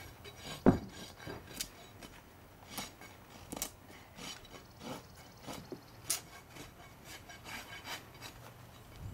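A hoof rasp scraping a Fjord horse's hoof during a trim: short, uneven strokes, about one or two a second. One loud thump about a second in.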